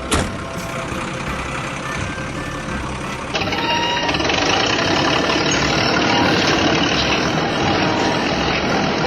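Truck engine running steadily, with a sharp knock right at the start. About three seconds in it cuts abruptly to a louder, duller stretch of the same kind of engine noise.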